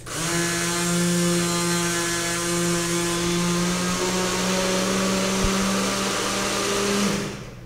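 Small electric windscreen-washer pump from a car, running with a steady whine after being switched on by the water-level probe control. It starts abruptly, its pitch rises a little partway through, and it cuts off after about seven seconds.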